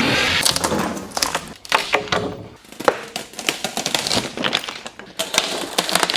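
Wooden boards and panels being pried and ripped off a welded steel-tube camper frame: an irregular run of cracks, snaps, creaks and knocks.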